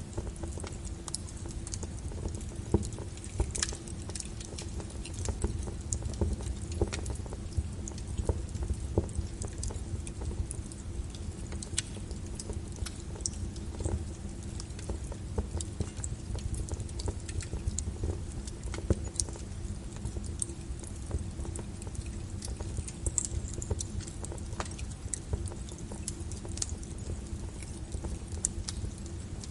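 Wood fire burning in a fireplace, crackling: irregular sharp pops and snaps over a low steady rumble.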